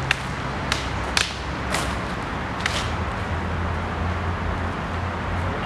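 Sparring kriegsmessers clashing blade on blade, about five sharp strikes in the first three seconds, the later ones ringing briefly.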